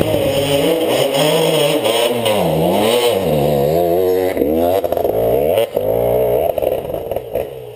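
KTM enduro dirt bike engine revving up and down as the throttle is blipped on and off over a rough forest trail, fading near the end.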